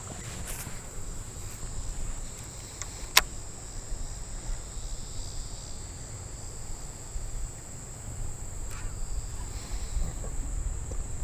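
Creekside ambience: wind buffeting the microphone, under a steady high-pitched insect drone, with one sharp click about three seconds in.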